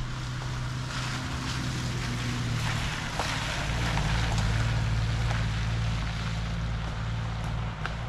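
Toyota LandCruiser Troop Carrier being driven: a steady engine drone with tyre and road noise, and scattered small ticks.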